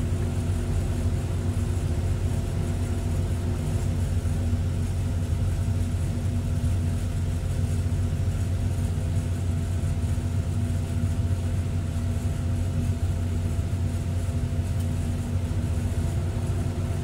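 Sumitomo hydraulic excavator's diesel engine idling steadily, heard from the operator's cab.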